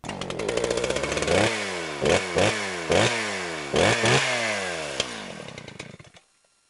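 A small engine revved in a string of quick throttle blips, about seven in all, its pitch sweeping up sharply and falling away after each, before it cuts off about six seconds in.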